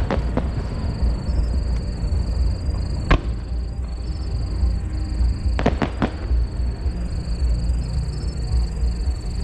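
Fireworks bursting in the sky: sharp bangs, two near the start, one about three seconds in and a quick cluster of three around six seconds in, over a steady low rumble, with music playing.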